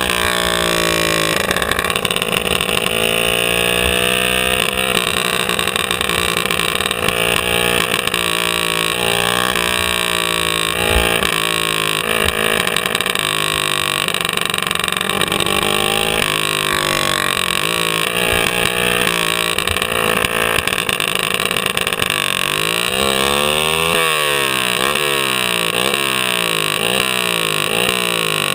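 Racing kart engine heard from onboard at full race pace, its pitch climbing and dropping again and again as it accelerates out of corners and backs off into them. Toward the end the pitch swings up and down quickly several times in a row.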